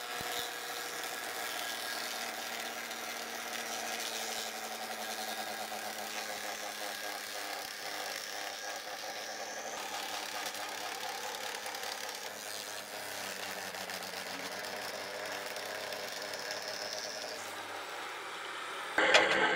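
Large carpentry circular saw running steadily through a thick Douglas fir beam, the motor's whine held at a fixed pitch under the noise of the blade in the wood. Near the end the sound suddenly gets louder.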